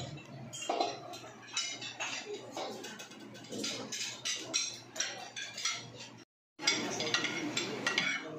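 Serving spoons, tongs and plates clinking against stainless steel buffet chafing dishes, many small irregular clinks, with people talking in the background. The sound drops out completely for a moment about six seconds in.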